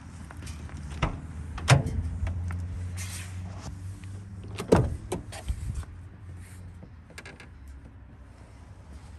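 Ford E-350 van's side barn door being unlatched and swung open: a sharp metallic latch click about two seconds in, then more clunks and knocks from the door and its handling around five seconds in, over a low steady rumble.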